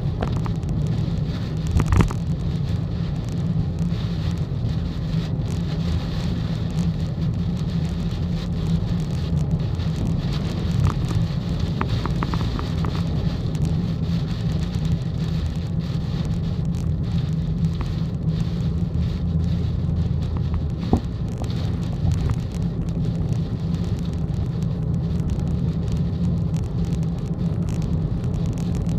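Steady low rumble of a car's engine and tyres on the expressway, heard from inside the cabin, with heavy rain hitting the car and a few sharp ticks.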